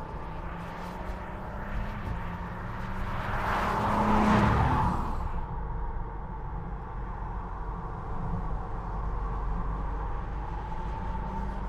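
Audi S4's turbocharged 3.0-litre V6 engine and tyres as the car drives past at speed: the engine and tyre noise swell to a peak about four seconds in, then drop away sharply. After that a steadier, quieter engine sound carries on.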